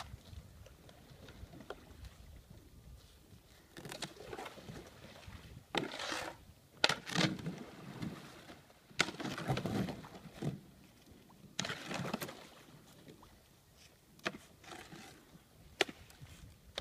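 Thin new lake ice cracking and crunching as a canoe is pushed and paddled through it. Irregular scraping bursts come every second or two, with several sharp snaps where the paddle breaks the ice.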